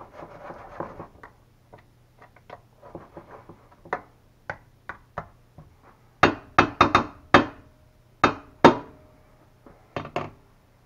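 A black plastic spoon stirring shrimp in a stainless steel skillet, scraping and clicking against the pan. From about six seconds in come a run of louder, sharper knocks of the spoon on the pan, and two more near the end.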